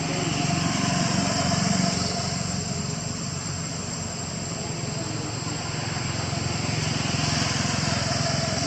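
An engine running steadily, with a low drone that swells, eases and swells again, over a steady high-pitched buzz.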